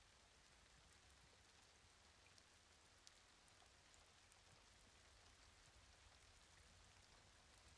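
Near silence with very faint rain: an even hiss with scattered soft drop ticks.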